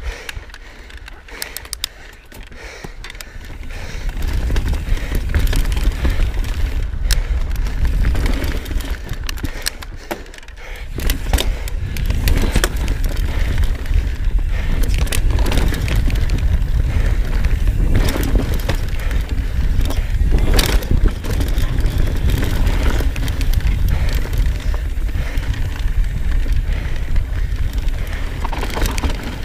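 Riding a mountain bike fast down a dirt trail: wind buffeting the action camera mic as a heavy rumble, with the knobby tyres crunching over dirt and roots and the bike clattering over bumps. The wind rumble builds about four seconds in, drops briefly near ten seconds, then returns.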